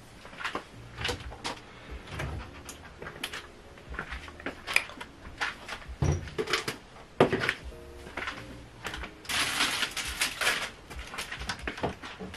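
Soft background music under scattered clicks and knocks of things being handled, with a burst of hissing noise lasting about a second, around nine seconds in.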